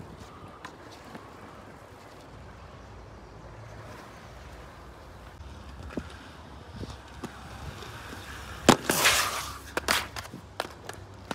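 Skate wheels and boards clicking on concrete, then a loud impact about nine seconds in followed by about a second of scraping: a skater falling and sliding on the concrete.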